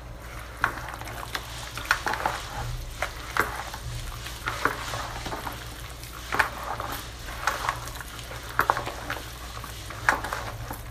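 A wooden spoon stirring wet pão de queijo dough in a bowl, the manioc-starch dough freshly wetted with warm water: irregular scrapes and wet squelches, roughly two a second.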